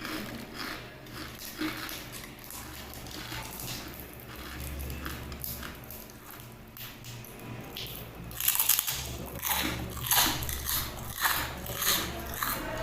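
Close-up biting and chewing of crispy fried pork rinds (chicharon), with repeated crackly crunches that get louder and come faster from about eight seconds in.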